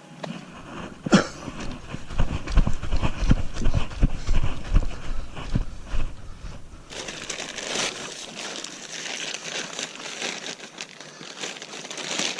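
Close rustling and crinkling with irregular knocks, then a denser crackling hiss from about seven seconds in.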